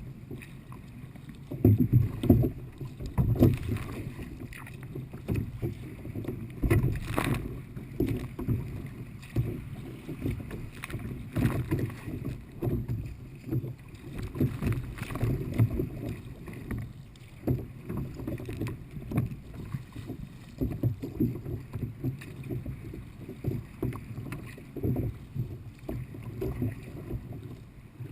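Kayak being paddled through light chop: irregular paddle splashes and water slapping and knocking against the hull, with louder splashes about two seconds in.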